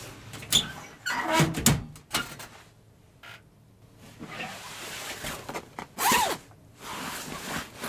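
Handling noises: a sharp knock about half a second in, a cluster of knocks and scrapes around one to two seconds in, then rustling with a louder scrape about six seconds in.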